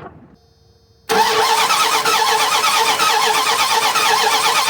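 Dodge Ram 1500's 5.2-litre V8 cranking over steadily on the starter motor without firing, beginning about a second in. It is a crank-no-start with only very weak spark at the distributor, which the mechanic takes for a bad, unevenly worn distributor cap.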